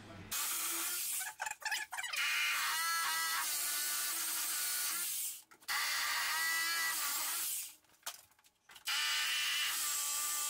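Corded hammer drill boring through a pine staircase stringer into the wall, for the bolts that fix the stringer. It runs in three long bursts with short pauses between, its motor pitch wavering as the bit bites.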